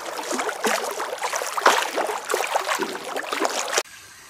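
Water from an artificial rock waterfall splashing steadily into a pool. It stops abruptly near the end.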